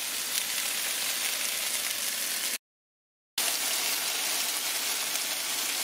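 Diced potatoes frying in oil in a skillet: a steady sizzle that breaks off into dead silence for just under a second about halfway through, then carries on.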